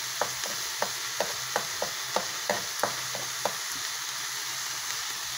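Egg and vegetables sizzling in hot oil in a metal wok while a metal spoon stirs, scraping and clicking against the pan several times a second. The clicking stops about three and a half seconds in, leaving the steady sizzle.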